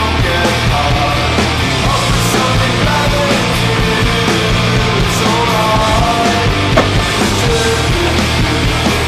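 Loud punk-style rock music playing steadily as the soundtrack.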